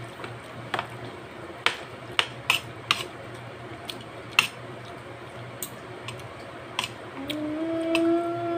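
Spoon and fork clicking and scraping against a plate while eating, a string of sharp separate clinks over a steady low hum. About seven seconds in, a steady pitched tone starts and holds.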